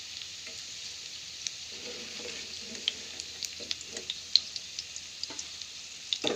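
Chicken pieces deep-frying in hot oil: a steady sizzle with many scattered sharp pops and crackles.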